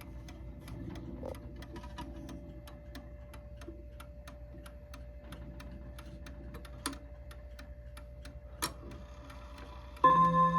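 Mauthe mantel clock ticking steadily, with two louder clicks in the second half. Just before the end its three-rod bim-bam strike begins, the gong rods ringing loudly in several pitches.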